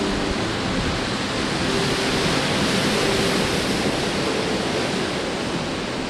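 Storm surf breaking over a rocky shore: a steady hiss and rush of waves and foaming wash.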